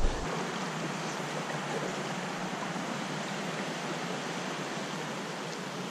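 A small trout stream's current rushing steadily, a constant even wash of water noise, the stream running a little high.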